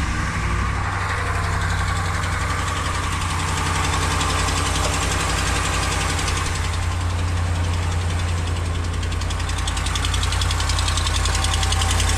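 Dodge Ram's 5.7 L Hemi V8 idling steadily just after starting, with a fast, even tick, tick, tick running through the engine sound.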